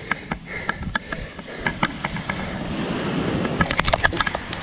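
Surf washing up on a beach, a steady rush that swells louder over the second half, with scattered sharp clicks and taps close to the microphone.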